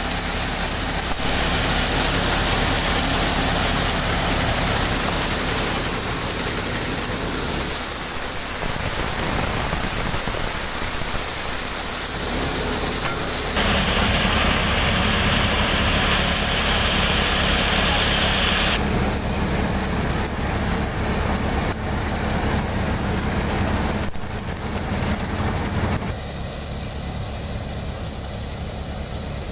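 A tractor-driven tokri-model cutter thresher running while it threshes ajwain: the tractor's diesel engine runs steadily under the rushing, rattling noise of the drum, belts and sieve. The sound changes abruptly several times and is quieter near the end.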